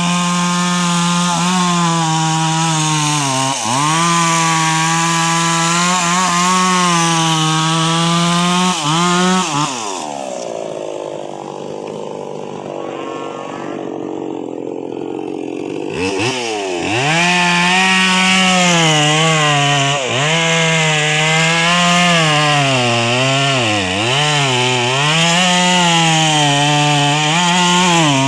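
Chainsaw with a 22-inch bar running at high revs, its pitch dipping again and again as it bogs under load cutting wood. About ten seconds in it drops to a lower, quieter run for several seconds, then revs back up at about sixteen seconds and keeps cutting.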